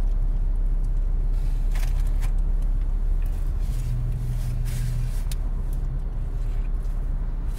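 Steady low hum of an idling vehicle engine, heard from inside the cabin. A few faint clicks and smacks of chewing a croissant sandwich sound over it.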